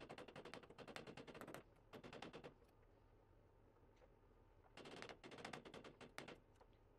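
Rapid light taps of a small hammer on a thin metal part of a can opener resting on the anvil of a bench vise, about nine taps a second. They come in three quick runs, with a pause of about two seconds before the last.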